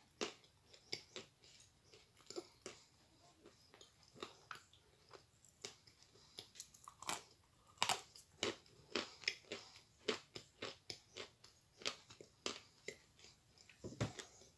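Close-up chewing of a mouthful of Astana Ideal edible clay: irregular crunches and moist mouth clicks, a few a second, with a louder crunch near the end.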